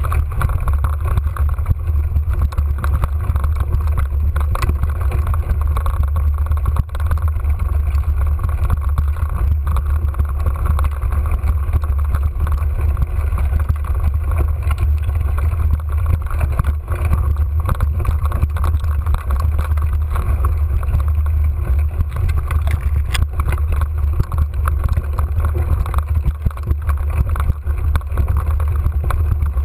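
Mountain bike climbing a rough singletrack, heard close to the bike: a loud, steady low rumble with frequent small knocks and rattles as it goes over the trail.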